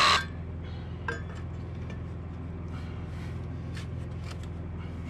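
A handheld power tool cuts off right at the start. Then come several light metallic clinks and taps as a sheet-steel post base plate is handled and set in place, over a steady low hum.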